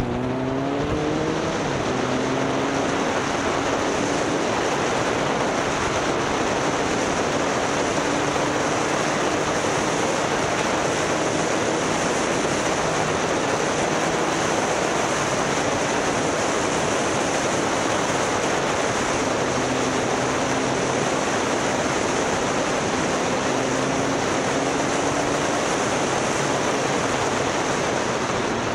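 Motorcycle engine climbing quickly in pitch as it accelerates, then running at a steady speed. Loud, steady wind rush on the microphone almost covers it.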